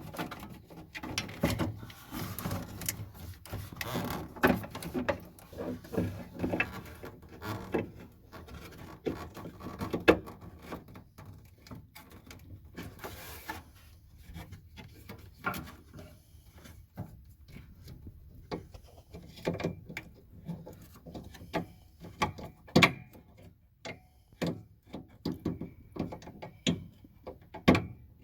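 Irregular clicks, knocks and light rattles of hands working a C3 Corvette's tail-light and reverse-light housings, twisting bulb sockets out and swapping them between housings.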